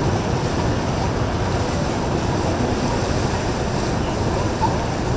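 Steady rumbling rush of wind on the microphone and moving water, with boat-engine noise mixed in; no single event stands out.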